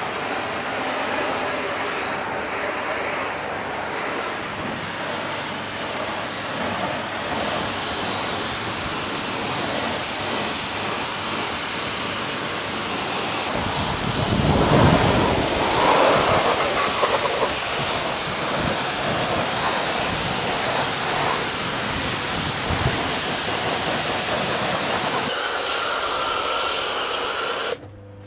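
Pressure washer jet spraying water onto a car's alloy wheel and wheel arch, rinsing off wheel cleaner: a steady, loud hiss of spray that gets louder and fuller about halfway through.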